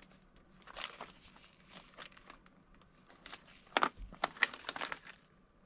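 Rubber-gloved hands handling and turning a glitter-covered hard-shell toy purse: scattered rustling and crinkling handling noise, louder a little under four seconds in.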